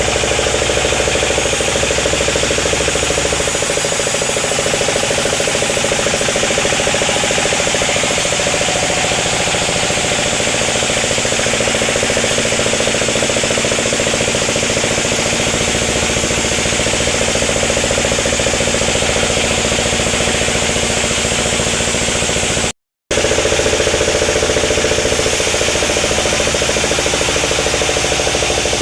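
Sawmill machinery running steadily: a saw working through sengon timber, a constant mechanical drone with hiss over it. The sound cuts out for a split second about three-quarters of the way through.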